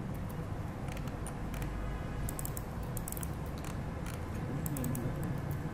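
Computer keyboard keystrokes and mouse clicks, a few scattered clicks and a short run of taps, over a low steady hum.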